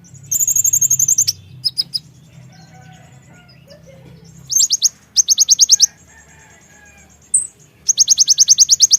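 Konin (kolibri ninja sunbird) song: bursts of rapid, very high-pitched trilled notes, four main runs with a few short chips between them, the last and longest run near the end.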